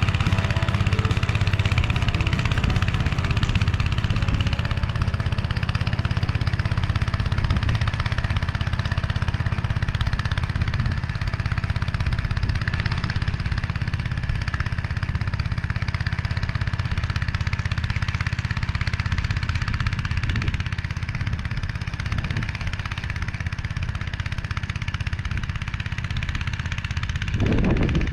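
Engine of a Motor Sich walk-behind tractor running steadily under load in first gear, driving a rotary tiller through the soil.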